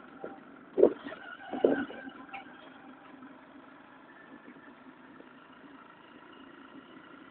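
Steady engine hum from a running vehicle, with a few loud knocks in the first two seconds.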